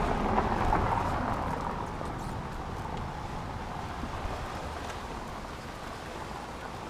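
Outdoor street noise: a vehicle passing and fading away over the first couple of seconds, leaving a steady hiss of wind and distant traffic.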